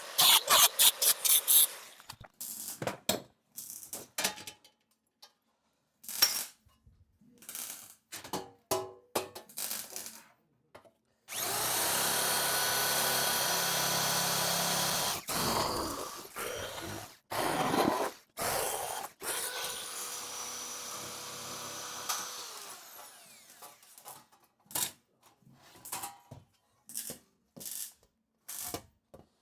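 Sheet-steel panel fabrication: scattered knocks and taps on the metal, with a power tool running steadily for a few seconds around the middle and again, more quietly, a little later.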